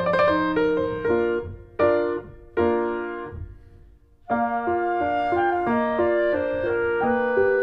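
Background piano music; it thins to a few chords that die away, falls nearly silent for about a second, and starts again a little past the middle.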